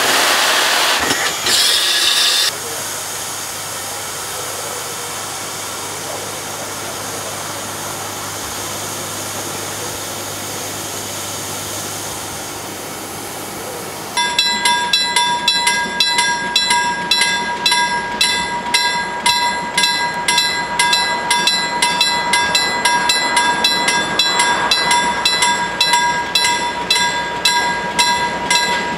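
Hr1 steam locomotive standing and hissing steam, loud for the first couple of seconds and then a softer steady hiss. About halfway through, a level-crossing warning bell takes over, ringing in fast, even strokes of about two to three a second.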